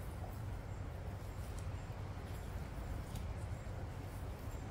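Aldabra giant tortoises biting and chewing fresh grass and leaves, heard as a few faint, crisp crunches spaced a second or so apart over a steady low rumble.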